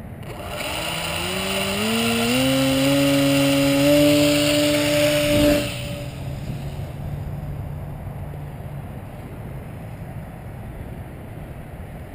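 Small electric pusher motor and propeller of a foam flying-wing RC plane throttling up in steps to a loud, high whine, the throttle-up for a hand launch. About five and a half seconds in the sound falls away sharply as the plane leaves, fading to a faint drone under wind.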